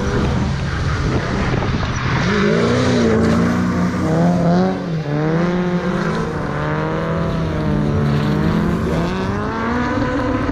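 BMW E46 330ci's straight-six engine revving, its pitch climbing and falling again and again.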